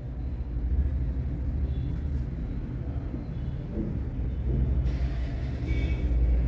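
Steady low rumble with no clear rhythm.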